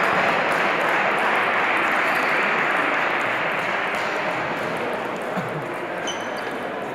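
A steady rushing noise that slowly fades, with faint, scattered clicks of table tennis balls being hit on nearby tables.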